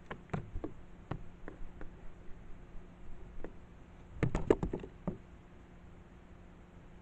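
Irregular sharp knocks and taps, with a quick flurry of louder ones about four seconds in, over a faint steady low hum.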